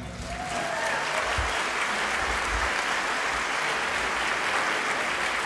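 Theatre audience applauding at the end of a song, swelling over the first second and then holding steady.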